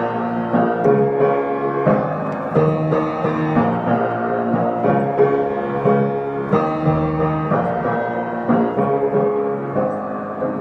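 Instrumental passage of a song with no vocals: layered sustained chords changing every second or so over a steady beat.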